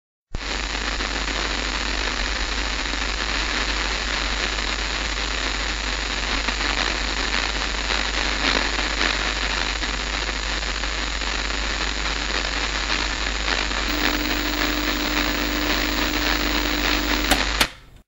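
A steady, even hiss of static-like noise that starts abruptly. A low steady hum joins it about 14 seconds in, and both cut off abruptly just before the end.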